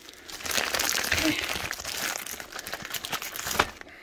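A tough white plastic shipping bag crinkling and rustling as it is handled and worked open by hand, with a sharp click near the end.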